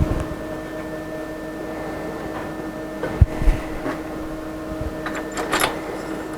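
Wooden workpiece and clamps knocking and clicking on a CNC router table as the material is squared up and clamped down: a knock at the start, a sharp knock a little after three seconds with two more after it, and clicks and rattles from about five seconds in, over a steady machine hum.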